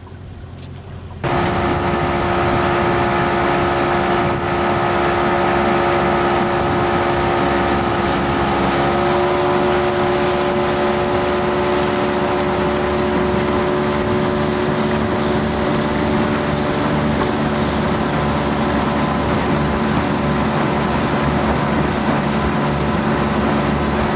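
Outboard motor running steadily as the boat travels across choppy water, with wind noise on the microphone. It starts abruptly about a second in, and the engine's pitch shifts slightly about nine seconds in.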